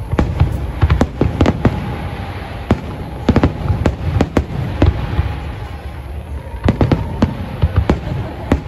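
Fireworks display: shells bursting in quick, irregular volleys of loud bangs, with a short lull a little past the middle.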